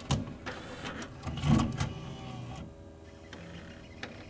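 Pioneer DVL-700 Laserdisc player's auto-reverse mechanism working to switch to side B: mechanical clicks and whirring, loudest about a second and a half in, then quieter with a click near the end. On this player the side-B switch fails because the spindle motor will not spin up fast enough in reverse.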